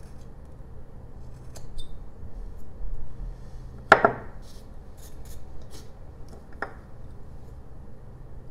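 Carving knife cutting into a small jelutong wood block: scattered crisp little cuts and snaps, with one sharp knock about four seconds in and a lighter one near seven seconds.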